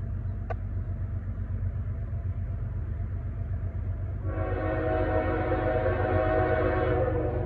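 Diesel freight locomotive running with a steady low rumble. About four seconds in, its horn sounds one long blast of nearly three seconds.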